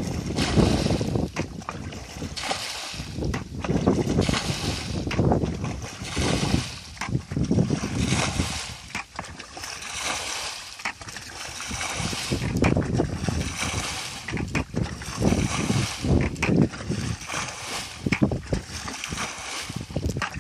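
Plastic bucket bailing muddy water out of a shallow rice-field pool: repeated scoops and splashing pours every second or two, with water sloshing around the wader's legs.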